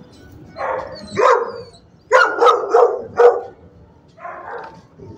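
Dog barking: two barks, then a quick run of four about a second later, and one more near the end.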